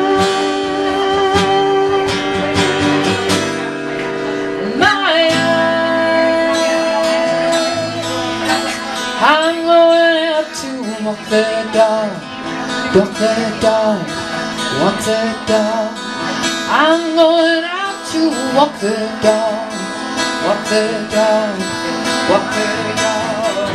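Acoustic guitar strummed live under a wordless lead line of long held notes with vibrato, bending and swooping in pitch about five, ten and seventeen seconds in: an instrumental break in a folk-pop song.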